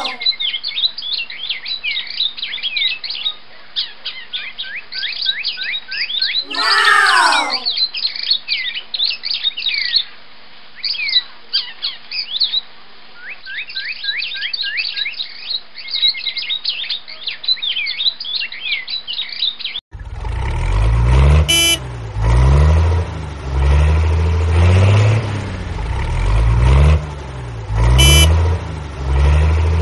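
Rapid high chirps falling in pitch over a faint steady hum, with a whistle sliding down in pitch about seven seconds in. About twenty seconds in this cuts off to a loud low rumbling sound that swells and sinks in pitch every second or two, with two sharp clicks.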